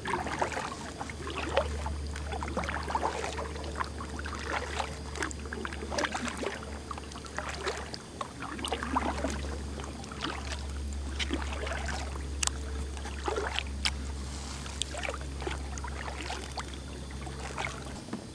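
Small irregular splashes and drips of water around a kayak's paddle and hull on calm river water, over a steady low rumble that stops near the end.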